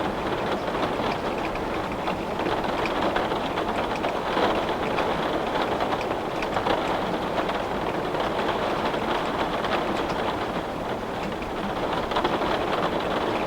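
Steady rain falling on a glass window: an even, dense hiss flecked with many small drop ticks.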